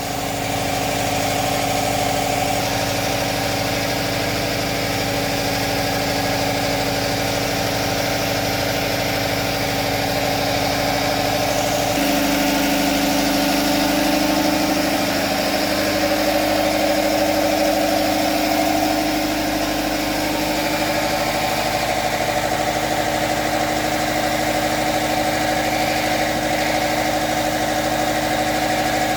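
An idling engine: a steady hum whose tone shifts about twelve seconds in and again near twenty seconds.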